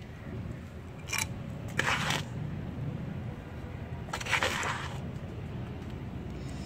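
Soil being scooped from a plastic tub and poured into a mesh-lined plastic crate: three short rushes of soil, about one, two and four and a half seconds in.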